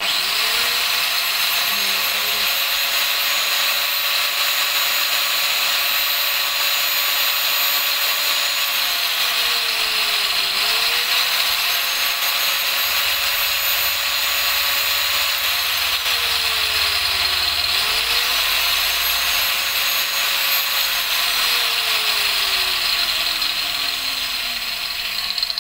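Electric angle grinder set on the front axle bolt of a Benelli Imperiale 400, spinning the spoked front wheel to find its heavy spot for balancing. The motor's whine climbs to speed three times; each time its pitch slowly sags as it slows and then rises again, and the last slow-down comes near the end.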